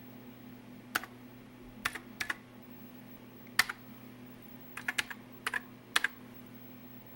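Keys on a Commodore SX-64 keyboard pressed one at a time: about a dozen separate clicks at an uneven pace, some in quick runs of three or four, over a steady low hum.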